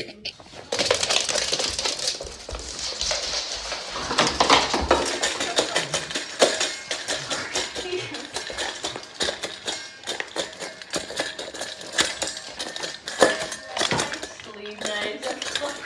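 Stainless steel dog bowl clattering, a fast irregular run of metal clinks as a dog eats from it, starting about a second in.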